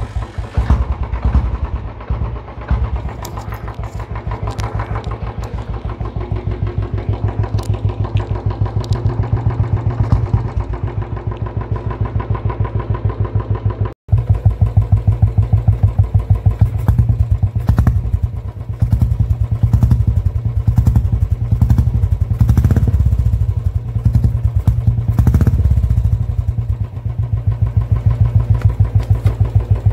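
Royal Enfield motorcycle engine running through a JB Racing aftermarket silencer, giving a steady, rhythmic exhaust thump. It drops out for a moment about halfway through and is louder after that.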